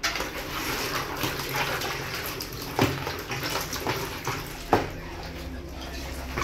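Water splashing and sloshing in a plastic tub as hands burst and push around water balloons, with two short, sharp snaps about three and five seconds in.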